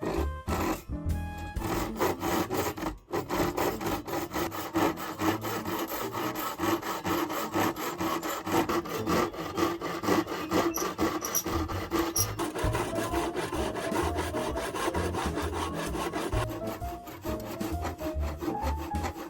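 Hand saw cutting through hard oak (nara) wood in quick, steady back-and-forth strokes.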